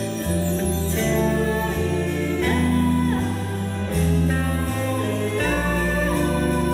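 A woman singing into a microphone over a live band with strings, the bass notes changing about once a second.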